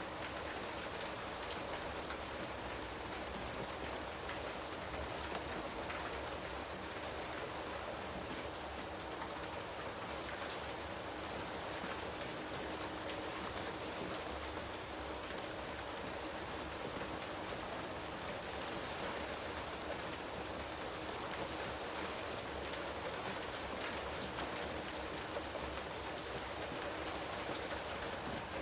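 Steady rain falling on foliage, an even hiss with many small drop patters.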